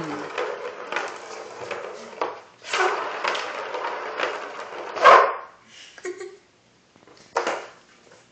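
Plastic ball rolling and rattling around a cat's circular track toy on a tile floor, a fast run of clicks as kittens bat at it, then separate bursts of rattling. There is a louder sharp sound about five seconds in, and it goes nearly quiet near the end.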